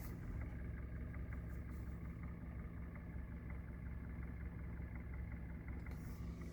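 Hyundai G4FC 1.6-litre four-cylinder engine idling in Drive, not yet fully warm, with a light, irregular knock that comes and goes.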